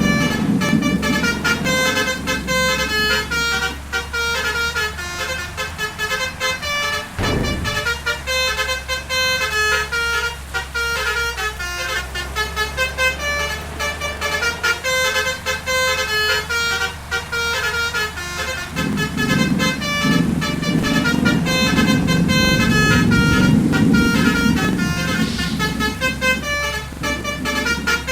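Bus telolet multi-trumpet air horn (basuri horn) playing a tune of quick stepped notes over the engine's steady low running. About two-thirds of the way in a low rumble swells for several seconds under the horn.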